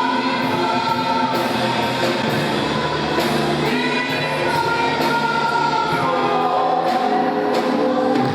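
A gospel worship song sung by a group of voices over a live band, the notes held and sliding in a slow melody.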